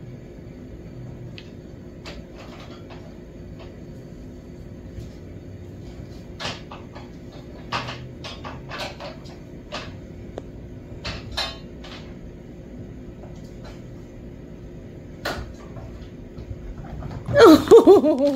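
Scattered light taps and clicks of a kitten batting and chasing a toy across a wooden floor, over a steady low hum. A much louder burst of sound comes near the end.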